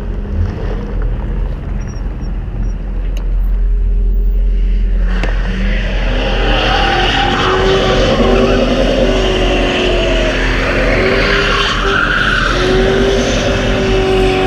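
A Ford Crown Victoria pulling away and then doing a burnout: the engine revs hard and the rear tyres squeal on the pavement, loud and sustained from about five seconds in.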